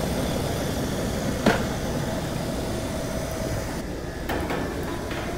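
Rheem 5-ton outdoor air-conditioning condensing unit running steadily after being restarted, with two light knocks as its sheet-metal service panel is handled, the first about a second and a half in.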